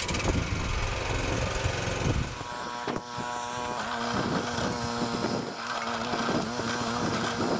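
Walk-behind rotary tiller's small gasoline engine running. About two seconds in the sound changes abruptly and settles into a steady, even drone while the tiller works the ground.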